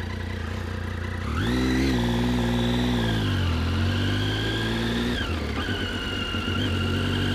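Triumph Street Triple 675's three-cylinder engine pulling away on the move. The revs rise about a second in, ease off, then climb again, drop briefly near five seconds and settle into a steady run. A high whistle rises and falls with the revs, the whistle typical of the three-cylinder.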